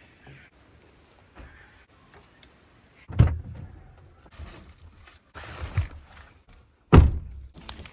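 Two heavy thuds about four seconds apart, a car door being shut, with rustling and handling sounds between them.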